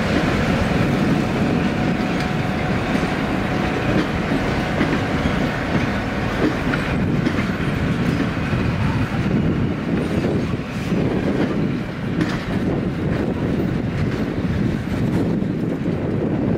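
Vintage Lackawanna passenger coaches rolling slowly past: a steady rumble of steel wheels on the rails, with occasional clacks as the wheels cross joints.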